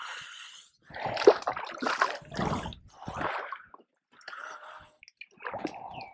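Water splashing and dripping in short, irregular bursts as a just-caught walleye is handled at the water's edge.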